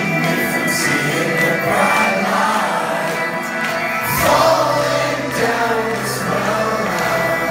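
Metalcore band playing live, with a vocalist singing into a handheld microphone over guitars and drums. About halfway through, a heavier low end comes in.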